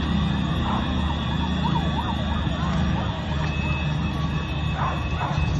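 Emergency vehicle siren wavering quickly up and down over a steady din of street and vehicle noise.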